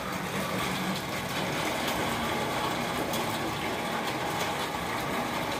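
Steady hiss of water splashing onto a corrugated metal sheet roof and running off its edge like rain, while the roof's slope is tested for drainage.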